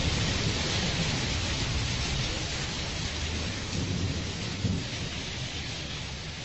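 Recorded rain falling steadily with low rolling thunder, slowly fading out. These are the storm sound effects that close the song once the music has gone.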